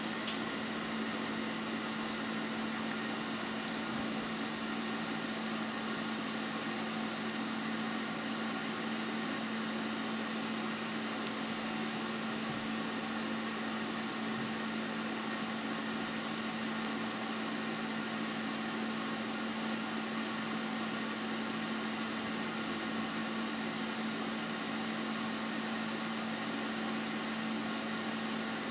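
Steady machine hum with a constant low drone and an even hiss above it, unchanging throughout; a single faint click about eleven seconds in.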